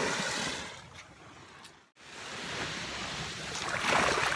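Sea waves washing on a sandy shore: one wash fading away in the first two seconds, then the next building up to its loudest near the end.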